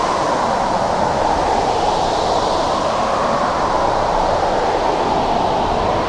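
Winter storm wind blowing steadily, a dense rushing noise whose higher hiss swells and eases slowly.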